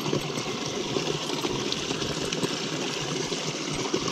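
Small waterfall on a rocky brook splashing steadily into a pool below.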